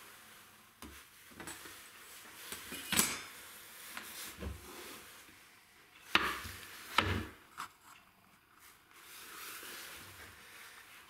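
A film-faced plywood plate and a thin wooden strip handled and set down on a wooden workbench: scattered light clicks and knocks, with two sharp knocks about a second apart some six seconds in.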